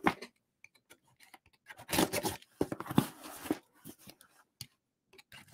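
A package being cut open with a safety blade cutter: scattered clicks and handling, with two longer scraping, tearing stretches about two and three seconds in as the blade slices through tape and cardboard.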